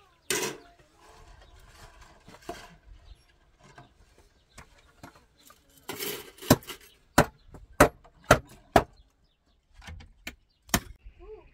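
Wooden boards being struck: a clattering knock just after the start, then a run of five sharp blows about half a second apart, and one more near the end.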